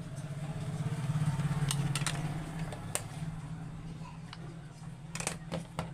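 An engine running steadily, swelling about a second in and then easing off, with a few sharp clicks near the end.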